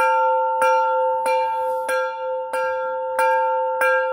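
Temple bell struck over and over at a steady pace, about once every two-thirds of a second, seven strikes in all. Each strike adds to one continuous ringing tone.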